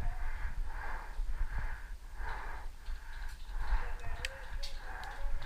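Quick, rhythmic, wheezy breathing close to the microphone over a low rumble, with a couple of sharp clicks near the end.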